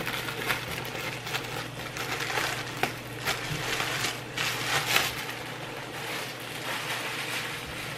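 Irregular crinkling, rustling and clicking of kitchen items being handled on a counter, with no steady rhythm.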